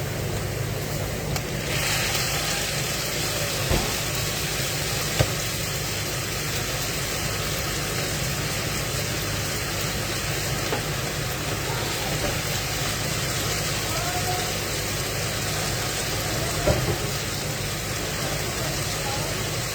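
Steady kitchen background noise: a constant low hum and a hiss that gets louder about two seconds in, with a few light knocks of kitchen utensils.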